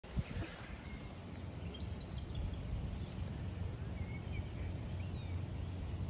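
Outdoor ambience: a steady low rumble with faint, short bird chirps scattered through it. A single knock comes right at the start.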